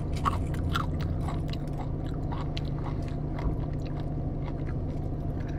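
Someone chewing crunchy snack food with hummus close to the microphone: repeated short crunches, most frequent in the first half. A steady low hum runs underneath.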